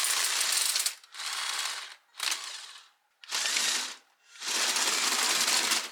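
Motorised LEGO-compatible toy bulldozer driving over stones: its electric motors, plastic gears and tracks grind and clatter in five short bursts as it is driven in stops and starts.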